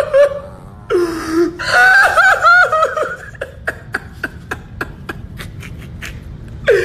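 A man laughing hard in quick rhythmic bursts, then breaking into breathless laughter of short, sharp catches of breath about four a second.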